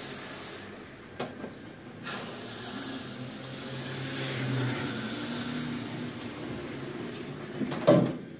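Water spraying from a hand-held shower head over a small dog in a grooming tub. The spray cuts off briefly about a second in and again near the end, over a low steady hum. A few sharp knocks, the loudest near the end.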